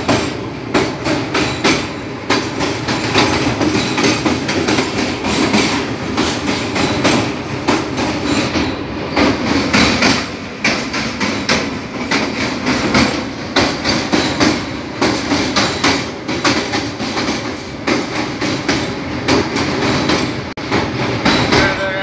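Train wheels clattering over the rails of a river bridge, heard from aboard the moving train: a dense, steady rattle of knocks, several a second, over the running noise of the carriages.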